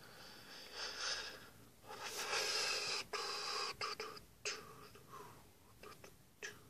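A man breathing out heavily close to the microphone: two long breaths, the second louder and longer, with a few soft clicks near the middle.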